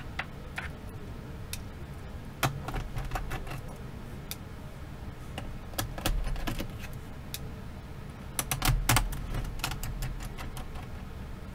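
Scattered light clicks and taps of small laptop screws being set down on a magnetic screw mat, and of the mat and the laptop's plastic bottom case being handled. A short cluster of louder clicks comes about two-thirds of the way in.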